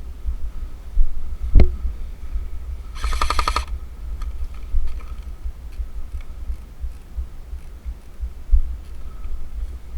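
Airsoft gun firing one short fully automatic burst about three seconds in, a rapid even rattle of about a dozen shots in under a second. A single sharp click comes just before it, over a low rumble of handling on the microphone.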